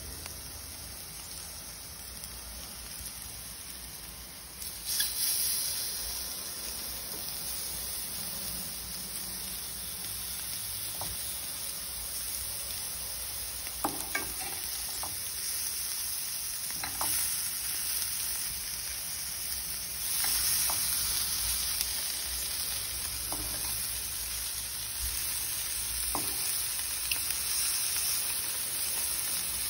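Onion masala sizzling in a stainless steel frying pan, the sizzle growing louder about five seconds in and again about twenty seconds in, with a few short clinks and scrapes of a spoon against the pan.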